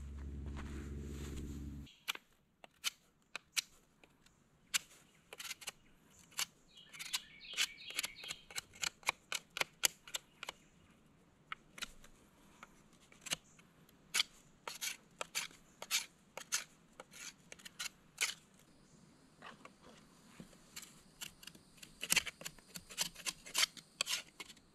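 Fixed-blade knife shaving a peeled wooden stick into a rotisserie spit: a string of sharp scraping strokes, one to three a second, coming in quicker runs at times. A low steady rumble is heard for about the first two seconds, then stops.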